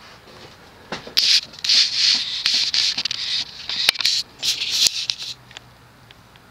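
Handling noise: a run of rubbing, rustling scrapes with a few sharp clicks, starting about a second in and stopping after about five seconds.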